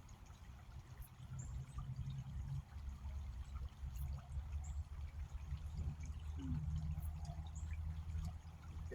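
Creek water running and trickling, a low steady rush, with faint short high chirps about every second and a half.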